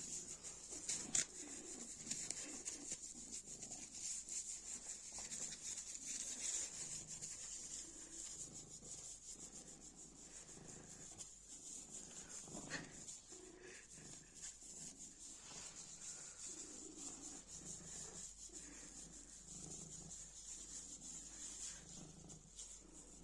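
A cat purring in a steady rhythm of pulses, with faint crinkling and rubbing from a scrap of plastic bag it is playing with.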